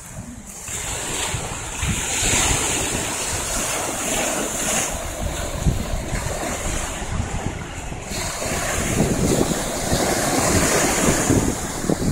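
Surf washing onto a sandy beach, with wind buffeting the phone's microphone in low gusts. It starts quieter and picks up about a second in.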